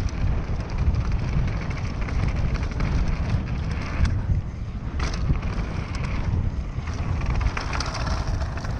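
Wind buffeting the microphone over the rumble and clatter of a YT Tues downhill mountain bike rolling fast over a rough dirt trail, with a few sharper knocks from the bike near the middle.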